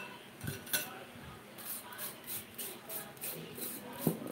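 Metal spoon scraping the flesh out of a potato half into a glass bowl, in quick repeated strokes about four a second. In the first second there are a couple of sharp clinks of metal on glass.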